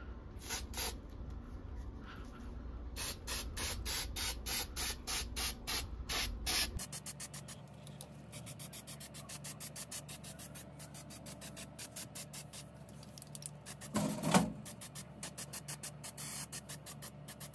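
Aerosol spray paint can spraying in many short hissing bursts, several a second. There is a single louder knock near the end.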